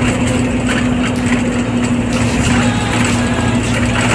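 Minibus engine running and road noise heard from inside the cabin while driving, a steady low hum with a few light clicks and rattles.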